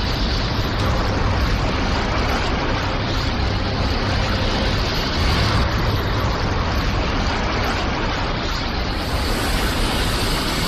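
Steady, loud rushing noise with a heavy low rumble underneath, a sustained anime sound effect with no clear pitch or rhythm.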